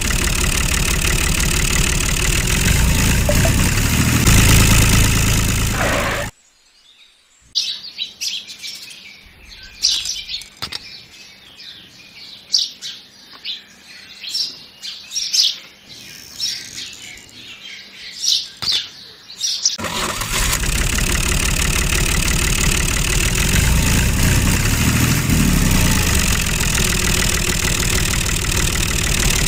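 A motor runs steadily and loudly, then cuts off about six seconds in. Through a quieter stretch of about twelve seconds, birds chirp over and over. About twenty seconds in, the motor running starts again and carries on.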